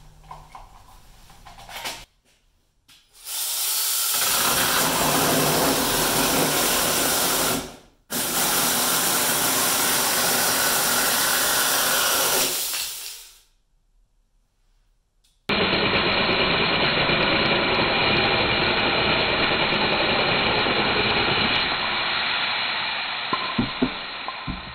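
Small battery-powered electric chainsaw with a 6-inch bar, its motor running and the chain cutting through a 2x4, in three long runs separated by short pauses. A few sharp knocks near the end as the chewed-up wood gives way.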